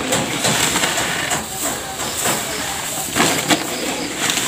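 Plastic bag and woven rice sack rustling and crinkling as hands work rice into the bag, with louder crackles about a second and a half in and again just after three seconds.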